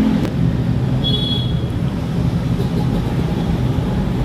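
Road traffic: a motor vehicle engine running steadily, with a brief high-pitched tone about a second in.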